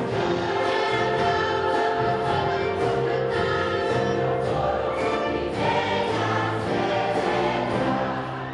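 Large choir of adults and children singing a Christmas cantata, with a brass band playing along.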